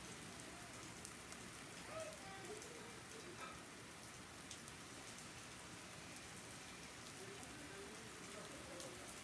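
Steady rain falling, an even soft hiss with scattered sharp drop ticks.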